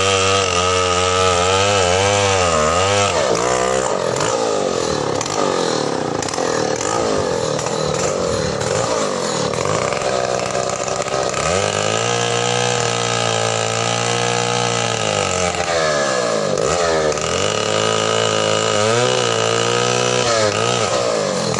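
Two-stroke chainsaw running continuously, its engine pitch repeatedly dropping and rising again as it is throttled and bogs into a tree trunk during bucking cuts. It holds a steadier high pitch for a few seconds in the middle.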